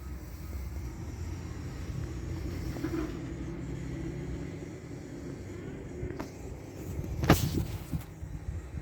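BMW N52 straight-six engine idling with a steady low hum. A sharp knock comes about seven seconds in, with a fainter click about a second before it.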